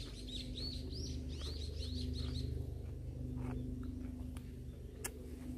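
A small songbird singing a quick run of rising-and-falling chirps, several a second, that stops a couple of seconds in, over a low steady hum.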